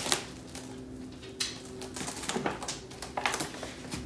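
Plastic cling wrap being pulled off its roll and stretched over a glass baking dish, giving irregular crinkling and rustling, over a faint steady hum.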